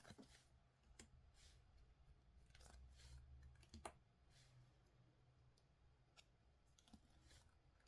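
Faint, scattered clicks and short rustles of trading-card packs and cards being handled and opened.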